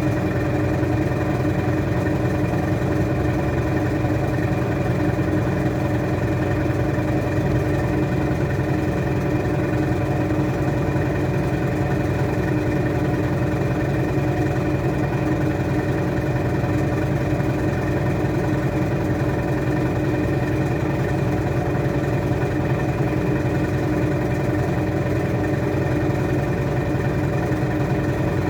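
Washing machine spinning at a steady high speed: a constant motor-and-drum whine with a low hum underneath, unchanging throughout.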